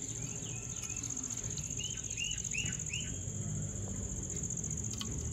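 A steady high insect trill, typical of crickets. About two seconds in, a bird gives four quick chirps in a row.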